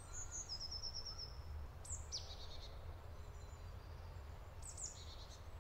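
Forest ambience: small songbirds chirping in short, high phrases a few times, over a low steady rumble.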